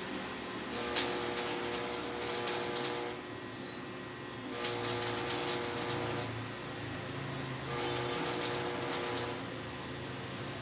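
Electric arc welder laying short welds on steel rebar: three bursts of crackling, sizzling arc noise, each about two seconds long, with a steady hum from the welder while the arc is struck and short pauses between welds.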